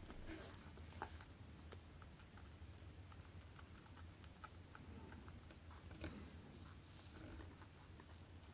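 Faint, scattered small clicks of steel tweezers touching a watch movement's mainplate as the chronograph's hour recording hammer is fitted, over a low room hum.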